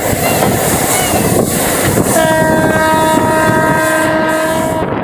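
Running noise of a passenger train heard from on board. About two seconds in, the locomotive horn sounds one steady blast of nearly three seconds, then stops.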